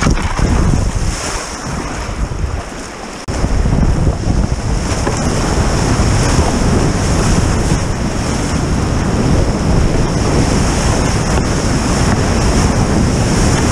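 Rushing whitewater of a creek rapid heard at close range from a kayak running down the drop. The noise is moderate at first, jumps suddenly to a loud, steady rush about three seconds in, and stays there, with water and wind buffeting the microphone.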